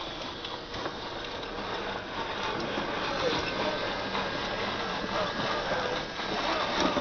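Radio-controlled toy dump trucks' electric motors and gearboxes whirring as they drive over dirt, a little louder in the second half.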